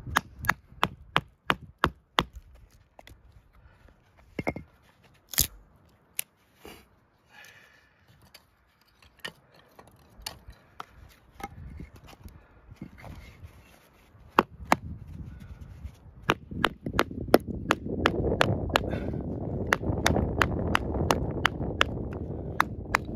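Batoning: a wooden baton knocks repeatedly on the spine of a QSP Bison bushcraft knife with a 4.3 mm thick D2 blade, driving it through a small stick of wood. Sharp knocks come in runs of quick strokes, fewer and softer in the middle, and thicker in the last several seconds with a rougher continuous noise under them.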